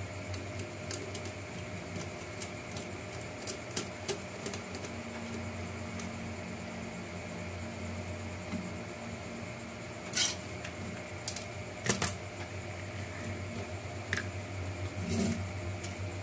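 Small plastic parts and a screwdriver clicking and tapping while screws are driven into a plastic fender-liner frame, with a few sharper knocks in the second half, over a steady background hum.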